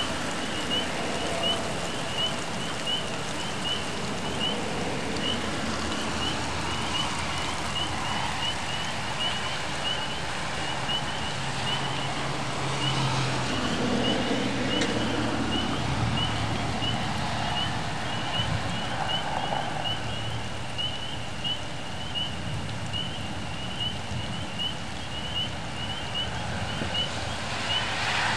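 Steady rain falling during a thunderstorm, with a short high chirp repeating about twice a second and a low rumble about halfway through.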